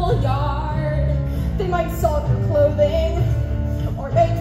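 Musical-theatre song: a female singing voice carries a wavering melody over a steady backing accompaniment with a strong bass line.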